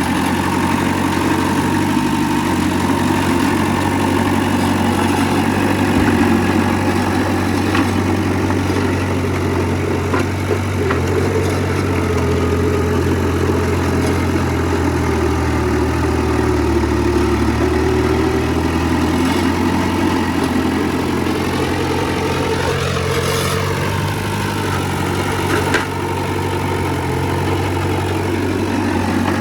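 Heavy diesel earthmoving machinery running steadily, with a few short knocks and clanks.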